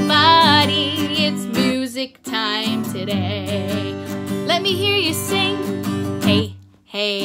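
Strummed acoustic guitar with a woman singing along in a wavering voice, with short pauses about two seconds in and near the end.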